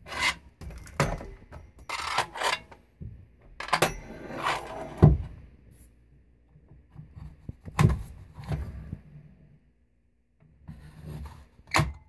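A plastic Beam central vacuum floor brush being handled and shifted on a concrete floor: several bursts of scraping and rubbing, with a few sharp knocks. The vacuum itself is not running.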